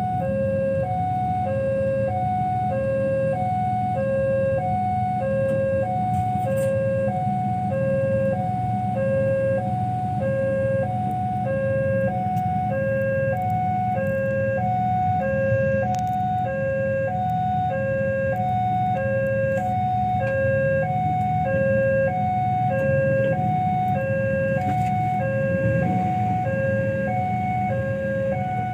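Railway level-crossing warning alarm: an electronic two-tone signal alternating steadily between a low and a high tone, about once a second. It sounds while the barrier is down, warning of an approaching train.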